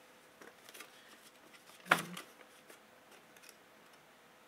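Paper handling as a thank-you card is opened: soft crinkles and light clicks, with one short, sharper tap about two seconds in.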